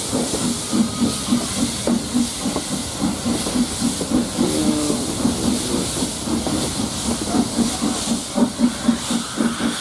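S&DJR 7F 2-8-0 steam locomotive no. 53808 working under steam, its exhaust beats coming at about four a second over a steady hiss of steam, heard from the carriage window with steam blowing past.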